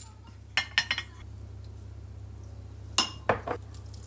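Tableware clinking and knocking: a quick run of clinks about half a second in, then three louder knocks about three seconds in, over a low steady hum.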